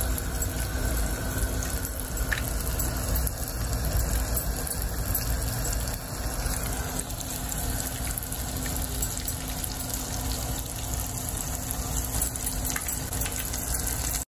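Flour-coated chicken pieces frying in a pan of shallow oil: a steady sizzle. The oil is a little cooler than ideal.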